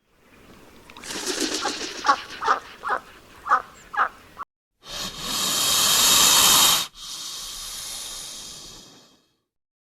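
A run of short animal calls, then a loud hiss of about two seconds that drops to a quieter hiss and stops about nine seconds in.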